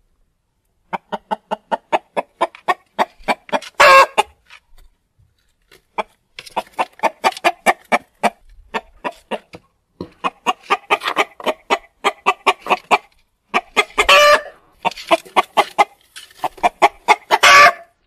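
Chicken cackling: runs of short clucks that quicken, some of them ending in a louder, drawn-out squawk, about four seconds in, near the middle and just before the end.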